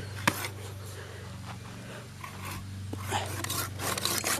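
Spears and Jackson hand pruning saw starting to cut wood about three seconds in, in quick back-and-forth strokes. Earlier, a single sharp knock, over a steady low hum.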